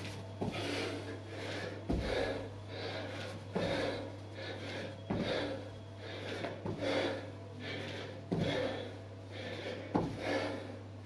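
Split squat hops on a tiled floor: feet in trainers land with a thud about every second and a half, with hard rhythmic breathing between landings. A low steady hum runs underneath.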